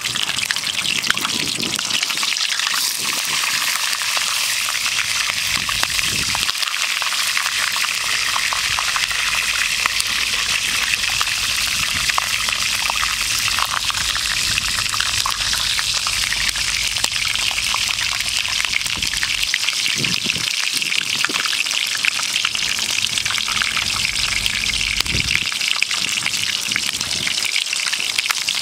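Whole chicken sizzling in hot oil in a frying pan: a steady, dense crackle of tiny spits and pops, with a few dull low thumps.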